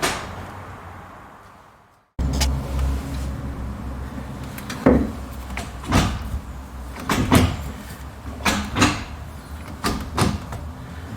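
Gear stick of a BMW E36 with a newly fitted short shifter being worked between gears: a series of short clunks and knocks about a second apart, starting after a couple of seconds of near silence.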